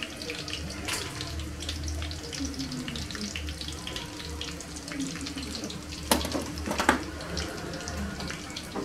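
Stainless steel square salad mold being lifted off a layered rice salad and set down, with two sharp metal clanks about six and seven seconds in, over a steady hiss and low hum.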